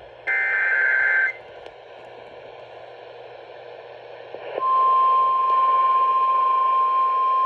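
Emergency Alert System alert relayed over KFI radio. About a second of the SAME header's warbling data-tone burst comes first, then a short stretch of radio hiss, and about four and a half seconds in the steady single-tone attention signal starts and holds.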